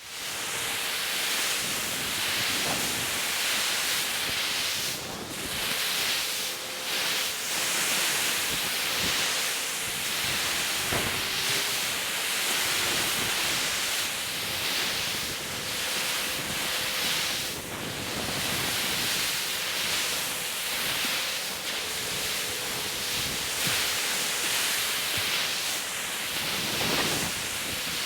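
Ocean surf breaking and washing steadily, a continuous hiss of churning water that swells a little now and then, with a faint steady tone underneath.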